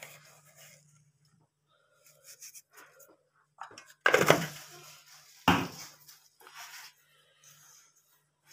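Two loud clatters of kitchen utensils being handled, about a second and a half apart, each dying away quickly, among smaller handling noises over a faint steady hum.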